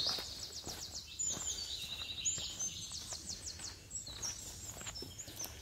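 High-pitched chirping and rapid trilling from forest wildlife in the trees, over soft footsteps at a steady walking pace on a rocky dirt trail.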